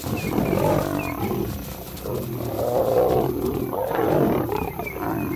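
Lions fighting: lionesses and a male lion growling and roaring in a rough, continuous run that swells and eases several times.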